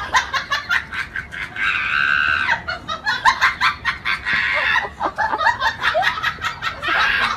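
Siberian husky vocalizing from inside a wire crate, mouth wide open: a rapid run of short high yips broken by a few longer drawn-out calls.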